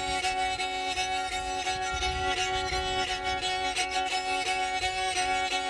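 Rabel, a rustic hand-carved bowed folk fiddle, playing an instrumental melody over a steady drone note.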